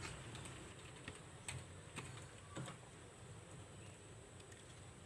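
A few faint, sharp plastic clicks, about half a second apart, from small parts being handled inside an opened laptop as the USB board's flex cable is released from its connector.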